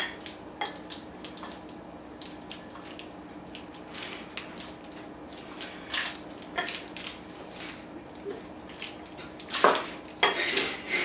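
Kitchen dishes and utensils clinking and clattering in scattered light clicks over a faint steady hum, with a louder clatter near the end.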